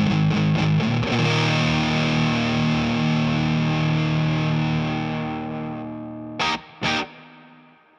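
Electric guitar through an O.C.E. Hammer fuzz pedal, a Big Muff-style circuit, playing a chewy fuzz rhythm part: quick repeated chord strokes, then a chord held and left to ring out and fade, with two short chord stabs near the end.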